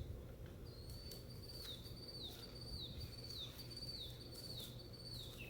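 A bird singing a high note that slurs down at its end, repeated about seven times in a steady series, over a faint low rumble.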